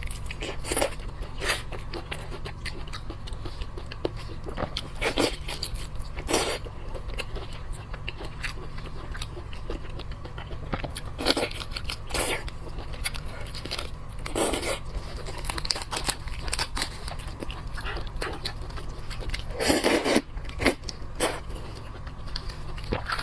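Close-miked eating of boiled crab: bites, crunches and wet chewing in irregular bursts, over a steady low hum.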